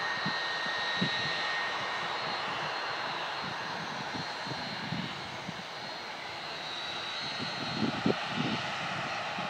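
Jet airliner engines at the airport: a steady rushing noise with a high whine that fades slowly. Wind buffets the microphone in gusts, most strongly near the end.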